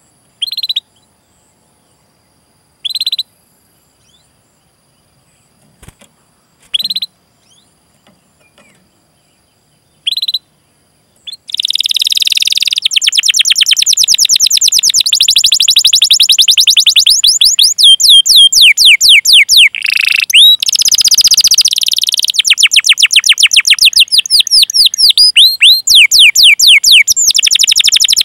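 Domestic canary singing: a few short, high 'cuit' calls with pauses between them, then, from about halfway, a long, fast rolling trill of rapidly repeated notes. The trill changes its note pattern from phrase to phrase, with a run of downward-sweeping notes near the end.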